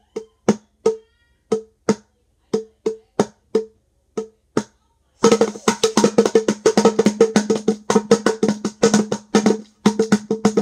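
Conga drums played by hand: spaced single strokes ringing at two pitches for the first five seconds, then a fast, dense run of strokes from about five seconds in.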